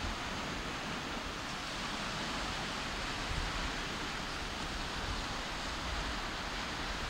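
Wind and small waves washing onto a sandy shore: a steady rushing noise with an uneven low rumble of wind on the microphone.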